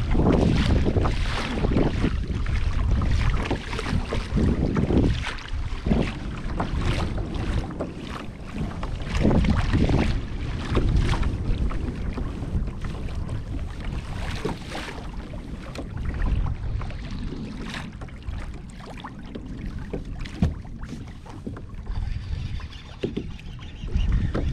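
Water splashing and rushing along the hull of a Hobie Compass pedal-drive kayak under way, in irregular splashes, with wind buffeting the microphone.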